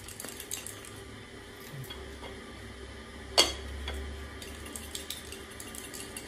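Xóc đĩa counters rattling in a porcelain bowl clamped over a plate as it is shaken with quick wrist movements, then one sharp clack about three and a half seconds in as the bowl and plate are set down.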